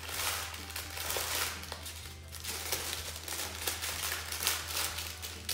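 Greaseproof baking paper crinkling and rustling in repeated strokes as soft cookie dough is rolled up inside it.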